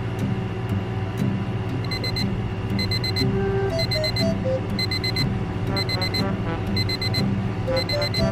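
Phone alarm beeping: groups of four quick, high beeps repeating about once a second, starting about two seconds in.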